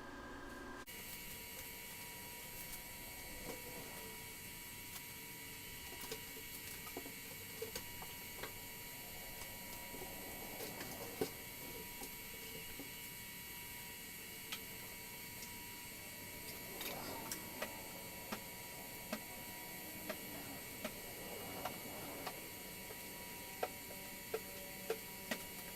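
Faint steady electrical hum, with scattered light taps and brief soft rubbing from a rag wiping window cleaner over a metal tool chest.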